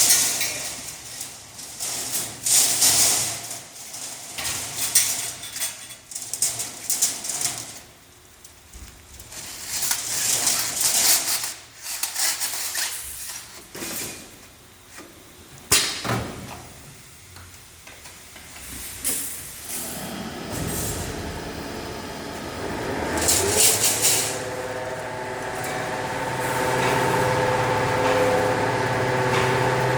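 Refrigerator evaporator tube-expander machine at work: irregular bursts of hissing with sharp clicks, then about twenty seconds in a motor spins up with a rising whine and settles into a steady hum.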